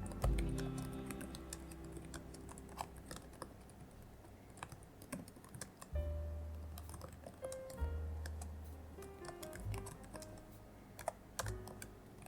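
Typing on a computer keyboard: quick, irregular key clicks, over soft background music with low bass notes.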